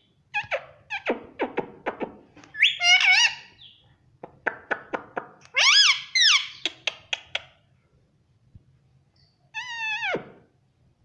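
Indian ringneck parakeet calling: a string of quick clicks and chatter broken by several loud, shrill, arching squawks, and one falling squawk near the end.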